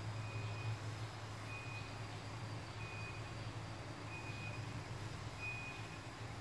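Electronic beeping: five short high beeps, evenly spaced about one every 1.3 seconds, over a steady low hum.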